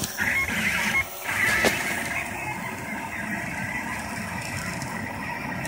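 Rostock MAX delta 3D printer running a print: its stepper motors whir in short, shifting tones as the print head moves across the layer, over a steady fan hiss. The sound dips briefly about a second in.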